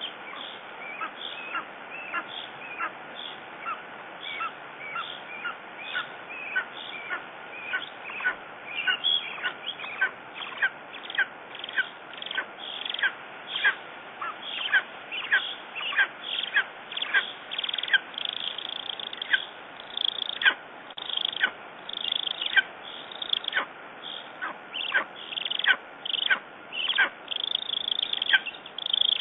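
Lesser spotted eagle calling at the nest: a long, steady series of short, high yelps, about two a second, growing louder in the second half.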